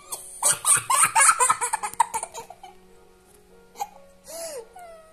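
A young girl laughing in a rapid, choppy burst for about two seconds, then a short rising-and-falling mew near the end from a newborn kitten.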